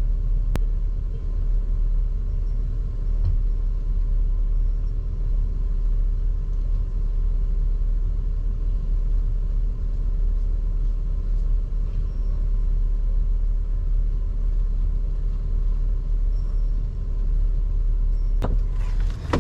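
Steady low rumble of a van heard from inside the cab, with one click about half a second in and a sharp knock near the end.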